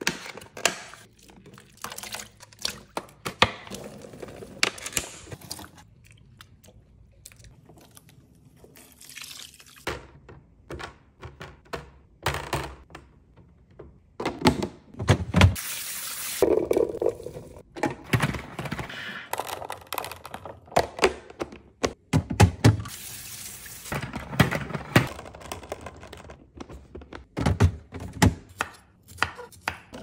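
Produce being set into clear plastic fridge bins and the bins pushed onto fridge shelves, giving many separate plastic knocks and thunks, with spells of running tap water between them.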